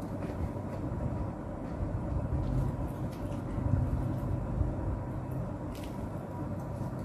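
Steady low rumble throughout, with a faint steady hum and a few faint clicks from chewing and handling a chicken shawarma wrap.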